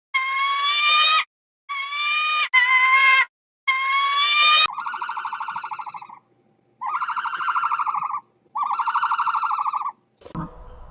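An animal calling: four short, high-pitched, siren-like cries, each about a second long and rising slightly, followed by three longer buzzy, rapidly pulsing calls.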